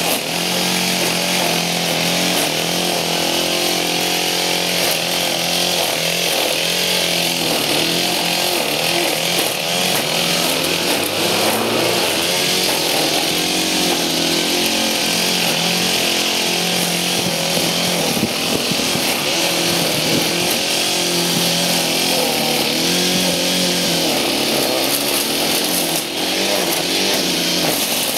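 Gas string trimmer engine running continuously, its pitch wavering up and down as the trimmer is worked along the grass.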